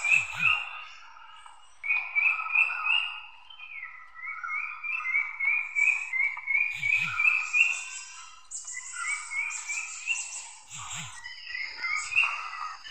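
Runs of short rising chirping calls, about two to three a second, that break off and start again, from calling animals.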